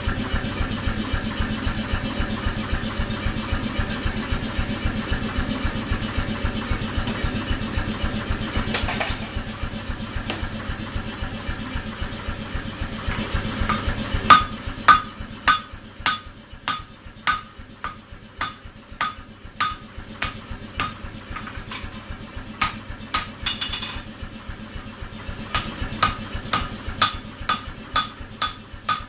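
A machine runs steadily with a rapid even pulse, then fades about halfway through. Hand hammer blows then ring on steel at the anvil, about two a second, with a short pause before a last run of strikes.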